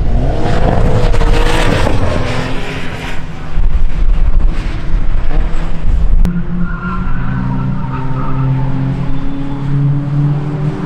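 Cars driving on a race circuit, their engines heard along the track. A wavering squeal sounds over the first couple of seconds, and from about six seconds in a steadier engine note holds.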